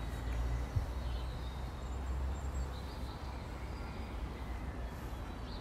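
Low, steady rumble of an Airbus A321neo jet airliner passing overhead, slowly fading, with birds chirping faintly.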